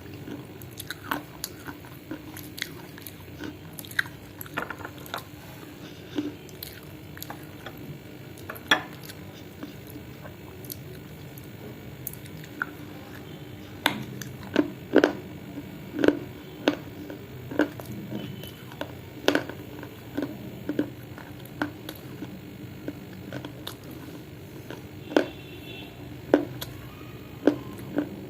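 A person chewing and crunching dry clay up close, with sharp, irregular crunches. The crunches come louder and more often from about halfway through.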